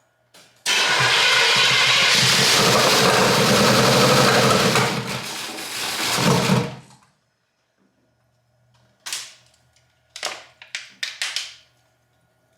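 A small-block Chevy V8 being cranked over by its starter for about six seconds without catching, on the first start attempt after a fresh Edelbrock cam and carburetor install. The cranking stops abruptly. A few short clatters follow near the end.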